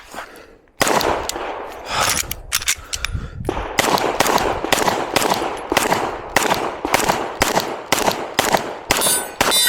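A string of pistol shots, one after another at about two to three a second, each with an echoing tail, starting abruptly about a second in. A short metallic ring near the end.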